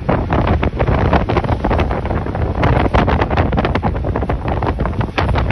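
Loud wind buffeting the microphone, a rough rumbling noise in irregular gusts.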